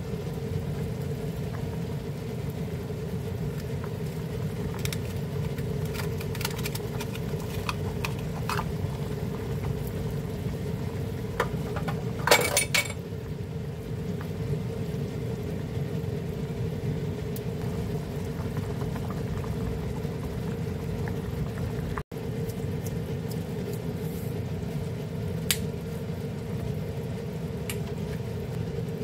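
Pot of seaweed and mussel soup boiling steadily, a low bubbling rumble with scattered small pops, and a brief louder clatter about twelve seconds in.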